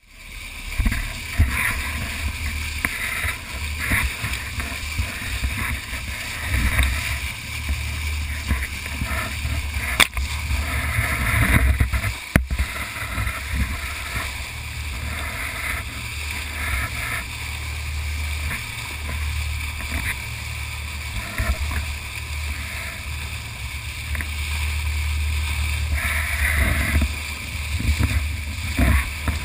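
Rushing water and splashing of a fishing boat's bow wave against a camera held at the surface, over a steady low rumble from the moving boat. A couple of sharp knocks break in near the middle.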